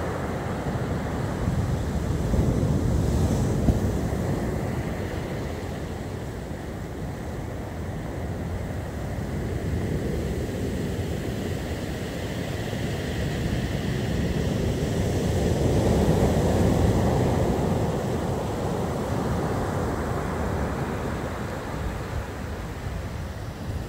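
Rough storm surf breaking and washing up the beach, with strong wind buffeting the microphone as a constant low rumble. The roar swells and ebbs with the incoming waves, loudest a few seconds in and again about two-thirds of the way through.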